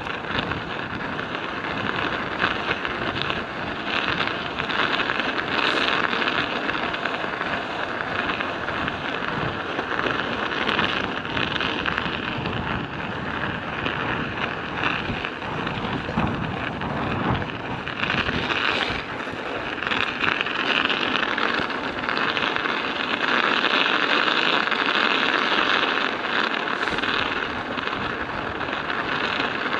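Studded bicycle tyres crunching and clattering on an icy road while riding, a steady grainy rattle, with wind buffeting the microphone.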